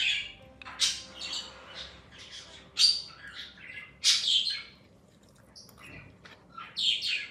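A bird chirping and squawking in short, irregular high calls, a few of them loud.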